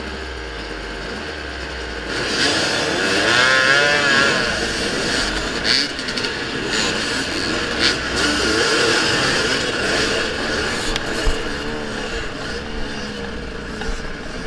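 A pack of off-road dirt bike engines running at a steady idle, then revving hard from about two seconds in as the riders launch together at a mass start, one engine rising sharply in pitch as it accelerates. The engines keep running at high revs as the bikes climb a loose, rocky hill, with a few sharp knocks.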